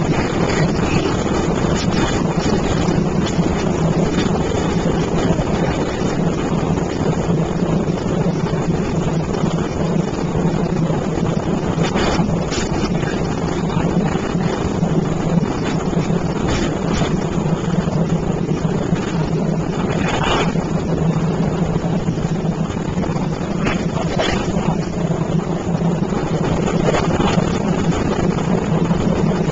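A boat engine runs steadily as a constant drone, with a few short knocks on the boat as the arrowed alligator gar is handled.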